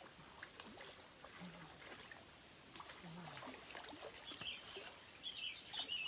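Outdoor ambience: a steady high-pitched drone of insects at two pitches, with scattered faint clicks and a few bird chirps in the last couple of seconds.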